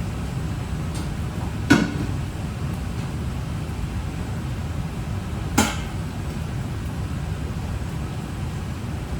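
Two sharp knocks of cookware, about four seconds apart, over a steady low rumble.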